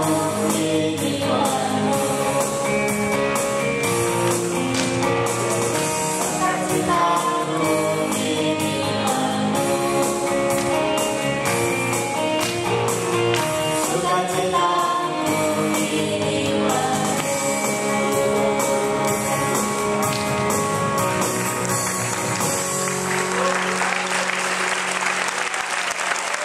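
A song with singing and a steady beat plays for the cast's closing dance. About 23 seconds in the music fades and the audience breaks into applause.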